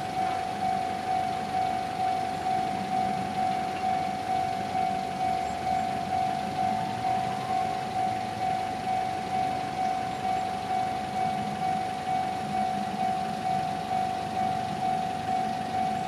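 Japanese level-crossing warning bell ringing steadily: an electronic ding of one pitch repeated about one and a half times a second while the crossing is closed.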